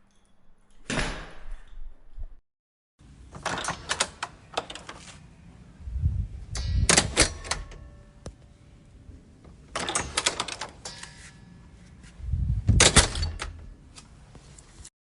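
A door being opened and shut, twice over: rattling clicks of the handle and latch, then a heavy thud as the door closes. A short stretch of dead silence falls about two and a half seconds in.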